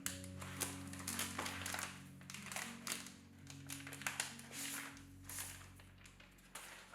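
Soft background music with sustained low notes, over the crinkling, rustling and light tapping of packaging being handled. The handling noises thin out in the last couple of seconds.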